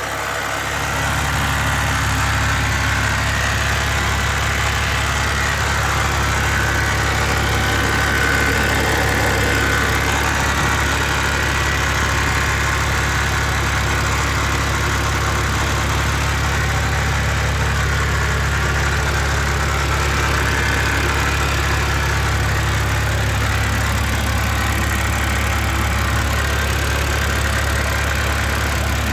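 BMW Z4 3.0si's N52 straight-six engine idling steadily, with a wavering higher-pitched noise over the low engine hum. The owner cannot explain the noise; it is heard only at idle and goes away when the engine is revved.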